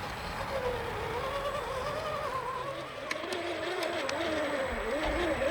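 Axial SCX10 II Honcho RC crawler's brushed electric motor and geared drivetrain whining, the pitch rising and falling as the throttle is worked. A few sharp clicks come about three seconds in.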